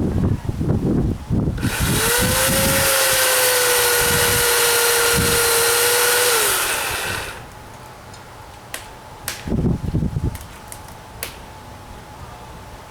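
Electric chainsaw starting up, running steadily for about five seconds as it cuts into a dead tree limb, then winding down. Wind buffets the microphone before the saw starts, and a few sharp clicks and knocks follow after it stops.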